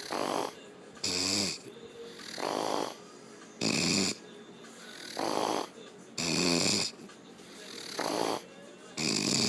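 A woman snoring heavily in a steady rhythm: a harsh, buzzing snore alternates with a breathy out-breath, about one full breath every two and a half seconds, four snores in all.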